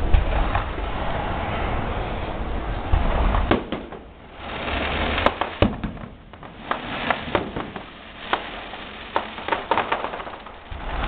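Aerial fireworks: a low rumble with a few bangs for the first few seconds, then a rapid string of sharp pops and crackles from bursting shells through the rest.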